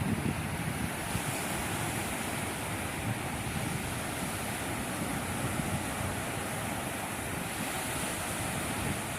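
Sea waves washing steadily onto the shore, with wind buffeting the microphone in low, uneven gusts.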